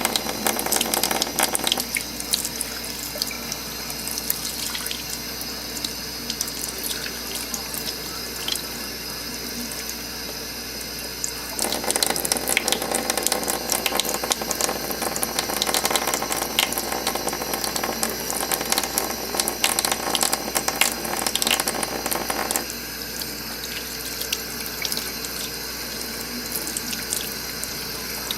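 Water running from a tap into a sink, steady throughout, turning louder and splashier for about ten seconds in the middle as the stream hits something in its path.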